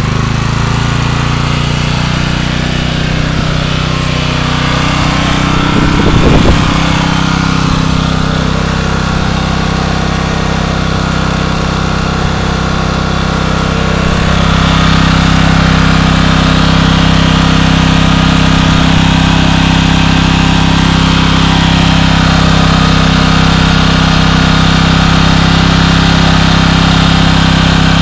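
Generac 4000 W portable generator engine running, speeding up at the start and then holding a steady drone. There is a brief loud bump about six seconds in, and at about the halfway point the engine note steps up and gets louder before settling.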